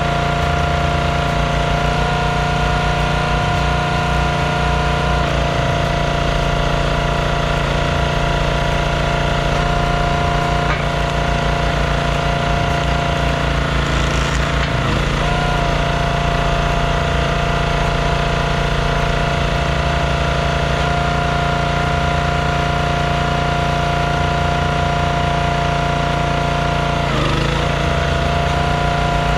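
Small gasoline engine of a Performance Built log splitter running steadily while wood is split, its note shifting briefly a few times.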